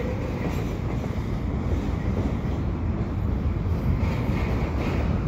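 Double-stack container train being shoved slowly into the yard tracks: a steady low rumble with no distinct clanks or squeals.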